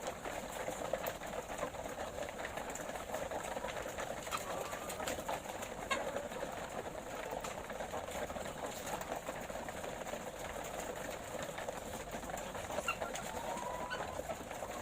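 A flock of laying hens clucking and murmuring in a steady, dense chatter, with scattered sharp clicks and a couple of short rising calls.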